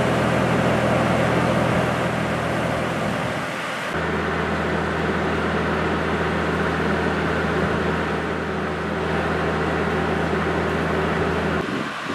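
Irish Rail 071 class diesel locomotive's EMD two-stroke V12 engine idling with a steady low hum. The hum drops out briefly about three and a half seconds in and comes back with a slightly different tone.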